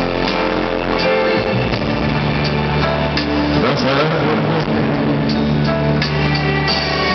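Live band music on stage: an instrumental passage with held chords and acoustic guitar, and no singing.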